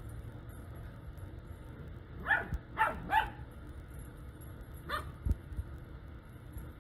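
Puppies yipping as they play-fight with a bigger dog: three quick high yips a couple of seconds in, then one more about five seconds in, followed by a brief low thump.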